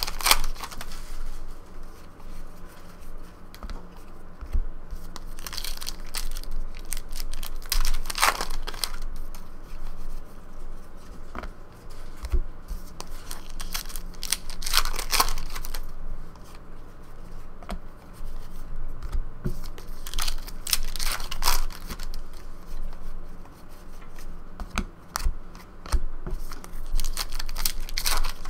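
Trading-card pack wrappers tearing and crinkling as packs are opened by hand, in several separate bursts, with the light rustle of cards being handled between them.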